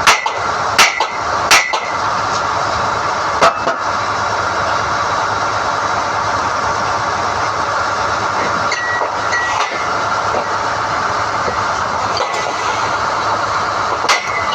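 SDH-1600 core drilling rig running steadily while NQ drill rods are hoisted out of the hole, with sharp clanks four times in the first few seconds and again near the end.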